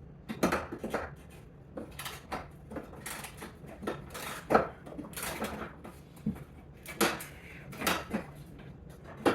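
Double ratchet wrench being worked on a tight nut: short bursts of ratchet clicks and metal-on-metal clinks, irregular, about one or two a second, as the last nut of a bracket is loosened.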